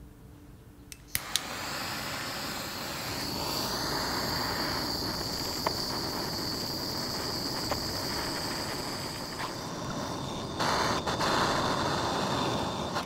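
Small gas torch lit with a couple of sharp clicks about a second in, then its flame hissing steadily with a high whistle, heating a small metal part to melt solder onto a break. It gets louder near the end and then cuts off suddenly.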